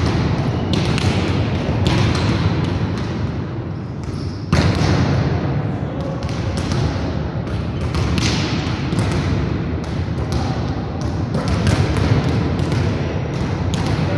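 Volleyballs being struck by hand and bouncing on a hard sports-hall floor: a string of irregular slaps and thuds, with several balls in play at once, each hit echoing in the large hall. A sharper, louder hit comes about four and a half seconds in.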